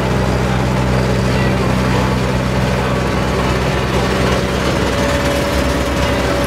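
An engine running steadily at idle: a low, even hum under a dense mechanical noise, with no revving.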